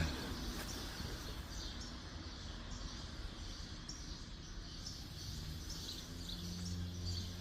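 Small birds chirping again and again in short high calls over a low background rumble. Near the end a steady low hum grows louder.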